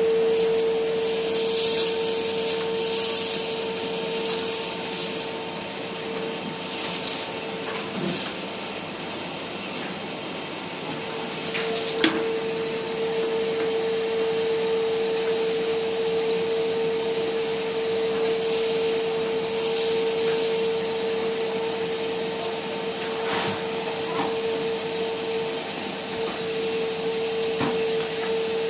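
Numatic Henry cylinder vacuum cleaner running steadily, its motor giving a constant whine over a rushing hiss. The whine fades for a few seconds about a third of the way through. There are occasional knocks, with one sharp knock about twelve seconds in.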